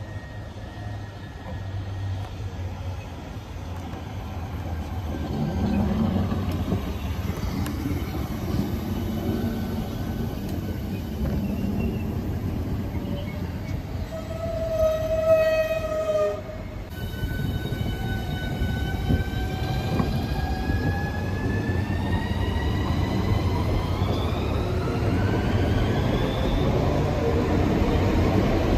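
Southeastern Class 395 high-speed electric train running alongside the platform with a steady rumble. About halfway through a horn sounds for about two seconds and stops abruptly. After that its traction motors whine, several tones rising steadily in pitch.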